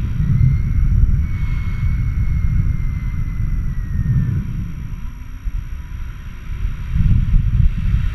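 Airflow buffeting an action camera's microphone in flight under a paraglider: a heavy gusting rumble that eases for a moment in the middle and picks up again near the end. A faint high whistle runs through the first half.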